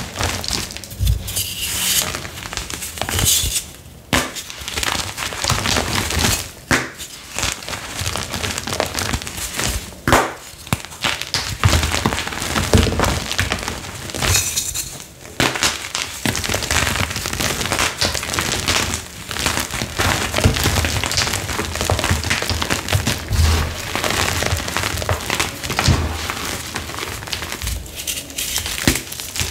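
Hands crushing and crumbling blocks of flaky, citric-acid-dyed gym chalk: dense crunching and crackling as the chalk breaks apart into pieces and powder, with a few short pauses between handfuls.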